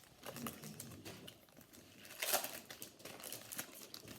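Foil wrapper of a football trading-card pack crinkling as it is handled and opened, with a louder crackle about two seconds in.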